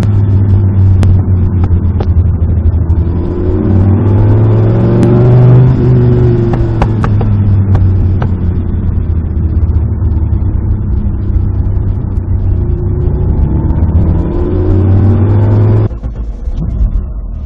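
Alfa Romeo Busso 3.0-litre V6 of a Lancia Stratos replica running on the road, heard through a microphone in the car's trunk. The engine note rises in pitch for a few seconds, with sharp pops and clicks scattered through. About sixteen seconds in it suddenly turns quieter and duller.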